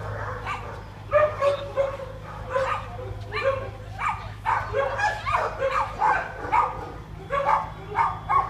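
Dogs barking in a quick run of short barks, about two to three a second, starting about a second in, over a steady low hum.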